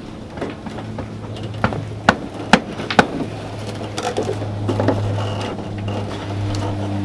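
Plastic bumper cover of a BMW E39 M5 knocking and clicking as it is handled and lifted off the car, with several sharp knocks in the first three seconds. A low steady hum comes in about a second in and grows louder.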